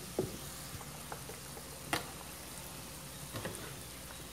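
Used frying oil with lemon pulp in a pot, still bubbling after the heat is switched off: a faint, steady sizzle of small bubbles as the lemon cooks out the rancid smell of the old oil. Three light clicks of a utensil against the pot come near the start, at about two seconds and near the end.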